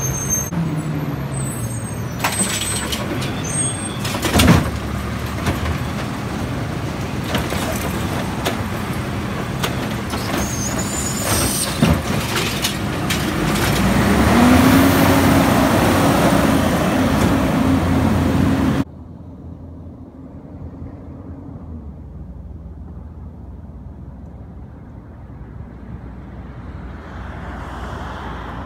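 Automated side-loader garbage trucks at work: a diesel engine running with high air-brake squeals and a sharp bang about four seconds in, then the engine revving up in the middle while the lifting arm dumps a cart. After a sudden cut, a distant truck's engine is heard approaching, much quieter.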